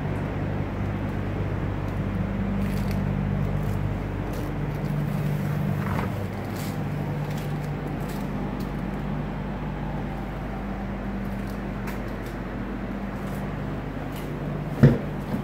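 A Ram 1500's 5.7-litre HEMI V8 idling steadily, with one sharp click of the door latch being pulled open near the end.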